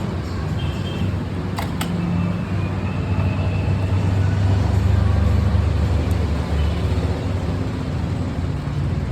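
Steady engine drone with a low hum that swells and then eases off about four to six seconds in, with a few faint clicks.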